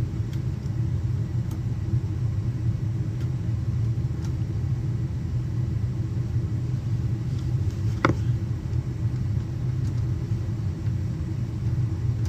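Steady low mechanical rumble, with a single sharp click about eight seconds in.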